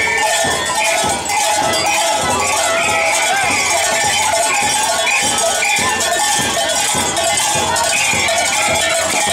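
Many small bells ringing over and over in a quick, steady rhythm, with crowd voices beneath.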